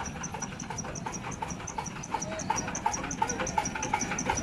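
Small single-cylinder diesel engine of a modified hand tractor (kuliglig) idling, with an even, fast ticking beat of about six or seven strokes a second that grows a little louder near the end.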